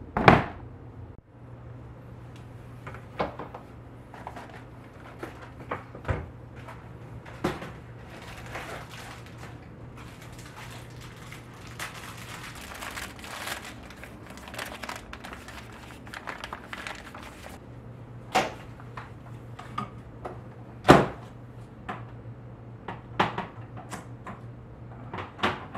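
Household handling sounds in a kitchen: a loud knock at the start, then scattered clicks and knocks of things being handled, with one sharp knock about three quarters of the way through. A low steady hum runs under much of it.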